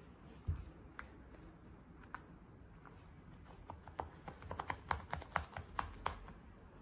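Faint clicks and taps of a Persian cat biting and kicking at a small insect toy on a tabletop. A few come singly at first, then a quick run of them about four to six seconds in.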